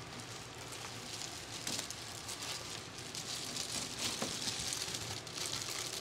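Bubble foil insulation crinkling and rustling as it is handled and wrapped around a portable air conditioner's plastic exhaust duct: an irregular crackle, busiest in the middle.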